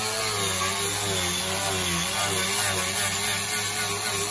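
Handheld air-powered sander grinding thick body putty off a panel. Its whine wavers in pitch as it bites, over a loud hiss.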